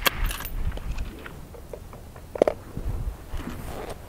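A sharp rifle crack on the range right at the start, then scattered small metallic clicks and one ringing metal clink about two and a half seconds in.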